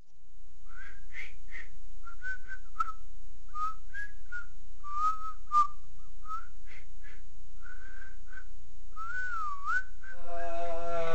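A person whistling a tune in short notes, with a wavering note shortly before the end. Near the end a louder, buzzy held note comes in.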